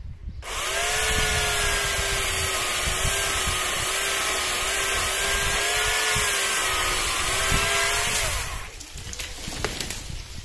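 Dolmar electric chainsaw running at full speed and cutting wood, its motor whine wavering and dipping a little under load; it starts about half a second in and stops about eight seconds in.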